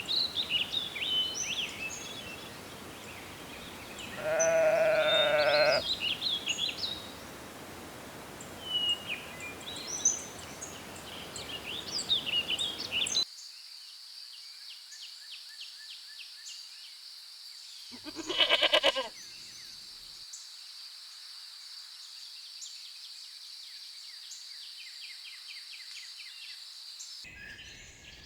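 Lambs bleating: one long bleat about four seconds in and a shorter one past the middle, over birds chirping; about halfway through, the background changes to a steady high-pitched trill.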